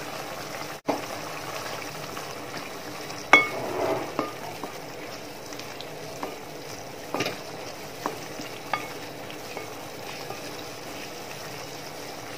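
A spatula stirring thick mango pickle in a metal pot on the heat, knocking against the pot several times with short metallic rings. The loudest knock comes about three seconds in. Under the knocks is a steady simmering sizzle.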